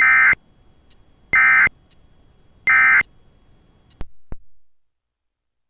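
Emergency Alert System end-of-message tones: three short, harsh SAME digital data bursts (the "NNNN" code), about a second and a half apart, signalling that the warning broadcast is over. About four seconds in come two clicks, and then the audio cuts off.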